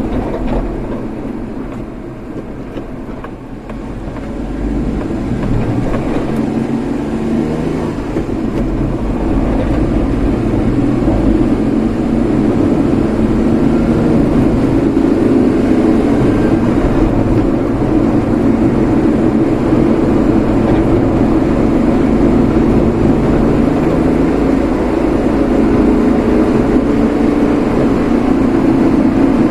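A road vehicle driving, with steady engine and road noise. It is quieter for a moment a few seconds in, then grows louder and holds steady.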